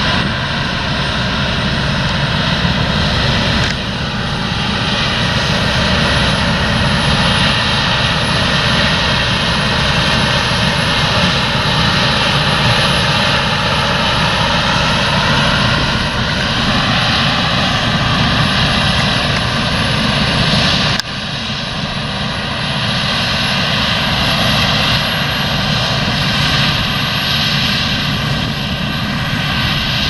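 Claas Lexion 780 combine harvester running while cutting wheat: a loud, steady drone of engine and threshing gear with a high, steady whine over it.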